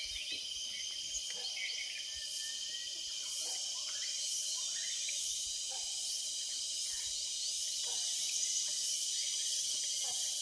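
Forest insects such as cicadas and crickets droning steadily, with a high, evenly pulsing buzz on top, and a few short bird chirps scattered through.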